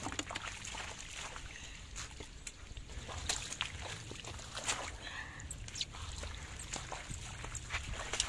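Irregular splashing and sloshing in shallow muddy floodwater, with many short sharp splats, as fish are grabbed by hand and dropped into a plastic bucket.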